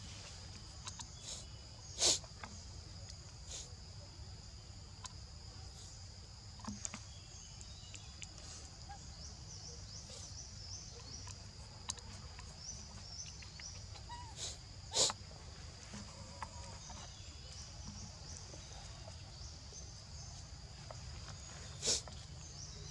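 Steady high-pitched drone of forest insects, with three brief sharp sounds: about two seconds in, midway through, and near the end.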